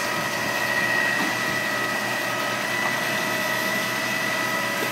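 Concrete boom pump running steadily while pumping concrete through its delivery hose: a constant mechanical drone with a steady high whine.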